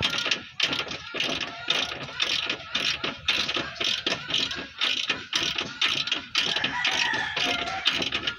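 Hand ratchet wrench clicking rapidly and steadily as it turns a suspension-arm bolt.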